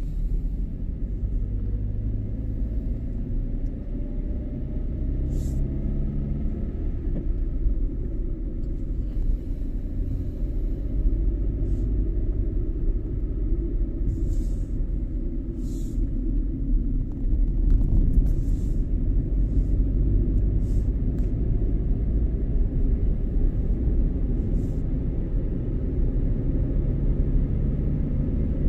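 A car driving, with a steady low rumble of engine and road noise. A faint engine note shifts in pitch during the first several seconds, and brief high ticks come and go throughout.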